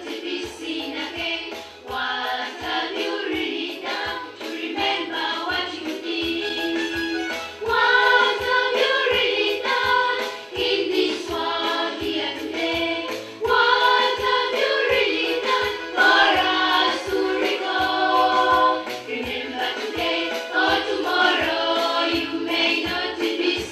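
Background music: a choir singing over a regular bass beat, getting louder about eight seconds in.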